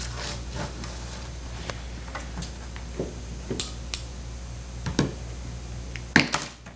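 Scattered light clicks and taps of a thin bronze ribbon strip being unrolled and handled, with two sharper clicks close together near the end, over a low steady hum.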